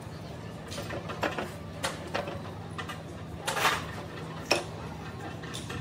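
Scattered metal clinks and knocks from tools and parts being handled, with one longer, louder sound about three and a half seconds in, over a steady low hum.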